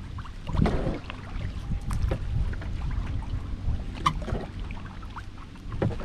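Kayak paddle strokes on a lake: a splash about half a second in and another near the end, with water dripping and small knocks in between, over a low rumble of wind on the microphone.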